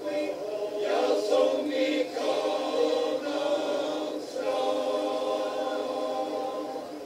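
Male voice choir singing a hymn a cappella: held chords, with short breaks between phrases about one, two and four seconds in.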